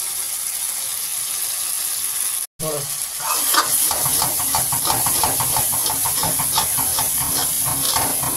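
Kabab pieces sizzling in hot oil and masala in a wok. About two and a half seconds in, after a very short break in the sound, a spatula starts stirring and scraping the pieces around the wok in quick repeated strokes over the sizzle.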